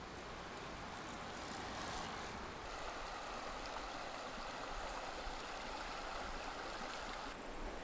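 Steady rush of flowing water, an even hiss-like sound with no distinct events, changing abruptly near the end.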